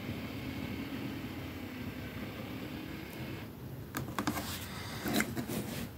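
Battery-powered light-up party projector running in its try-me demo with a steady whirring hum that cuts off about three and a half seconds in. A few clicks and rustles of the box being handled follow.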